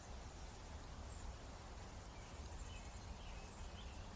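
Faint outdoor ambience: a few scattered bird chirps over a low steady rumble.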